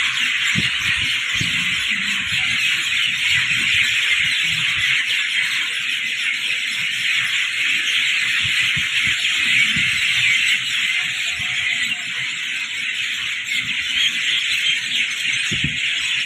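Steady, dense, high-pitched insect chorus, with irregular low rumbles underneath.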